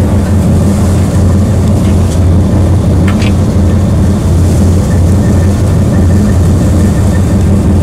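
Salvamento Marítimo rescue launch's diesel engines idling alongside the quay: a loud, steady low drone.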